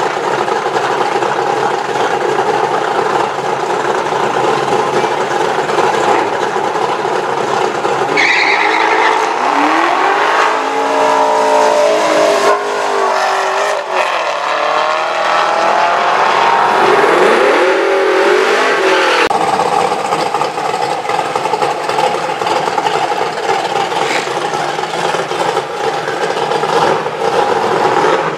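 Drag cars idling at the starting line, then a Chevrolet Camaro launches and accelerates, its engine note rising in pitch from about eight seconds in. A second rising run near the middle stops abruptly, and steady idling follows.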